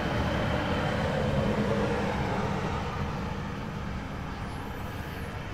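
Steady low background rumble with a faint hum, fading slightly toward the end: the ambience under a pause in a film dialogue scene.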